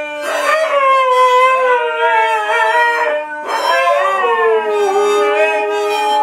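Two husky-type dogs howling along to a harmonica: long howls that glide up and down over the harmonica's held notes. The howling breaks off a little past three seconds in and starts again.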